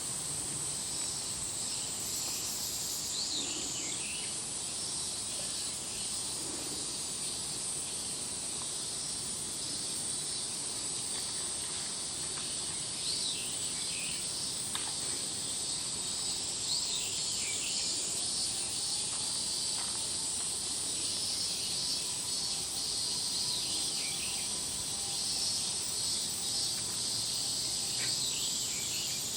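Steady, high-pitched insect buzzing runs throughout, with a few short falling calls now and then.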